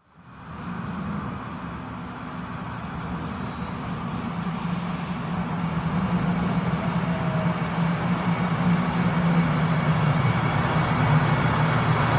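Metro train running: a steady rushing noise with a low hum, fading in at the start and growing gradually louder.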